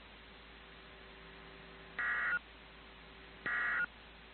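Emergency Alert System end-of-message SAME data bursts: two short bursts of digital tones about a second and a half apart, the first about two seconds in, marking the end of the alert. A faint steady hum sits underneath.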